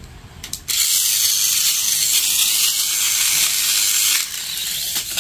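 Mini 4WD Hurricane Sonic toy car: a couple of clicks as it is switched on, then its small electric motor and gears running with a steady high-pitched whir as the wheels spin freely in the hand. The whir drops a little about four seconds in.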